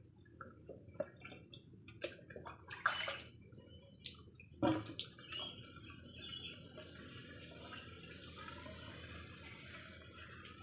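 Water poured from a plastic jug into the end of a flexible garden hose, splashing and trickling as the hose fills to prime a siphon. A few sharp splashes and knocks in the first half give way to a steady trickle.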